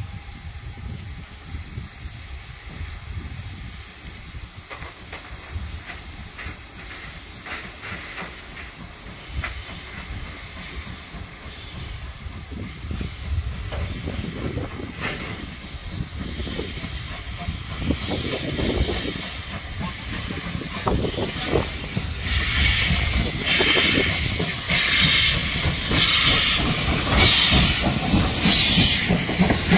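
A Great Western steam locomotive hauling coaches approaches and passes at low speed, getting louder from about halfway in. In the last several seconds its steam exhaust beats come as regular hissing chuffs, about one a second.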